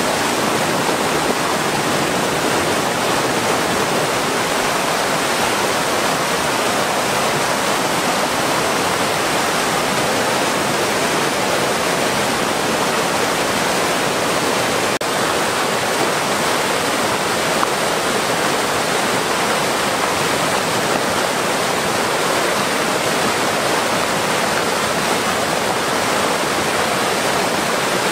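Fast river rapids rushing over rocks, a loud, steady, unbroken sound of whitewater.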